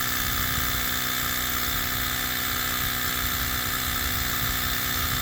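Battery-powered portable air compressor running steadily, inflating a flat car tire that slowly fills.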